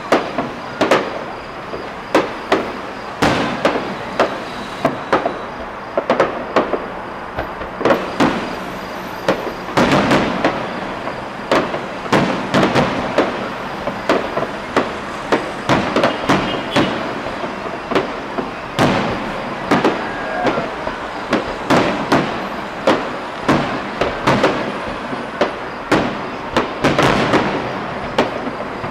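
Fireworks display: a continuous series of sharp bangs from bursting shells, about one to three a second.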